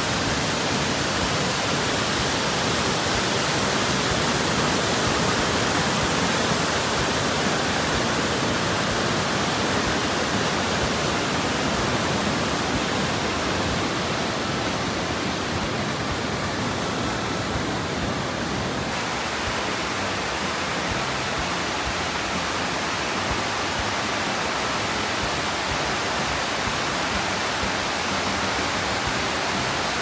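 Steady rush of Fukiware Falls, a wide curtain waterfall on the Katashina River, pouring over a rock ledge into its gorge. The tone shifts slightly about nineteen seconds in.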